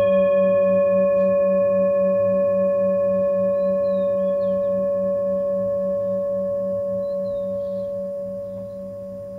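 A struck bell-like metal tone ringing on and slowly fading, with several steady pitches and a low tone that wavers about four times a second.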